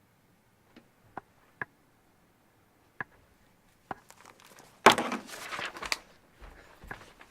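A few small clicks and knocks, then a loud burst of rustling about five seconds in, with softer rustling and clicks after it: handling noise.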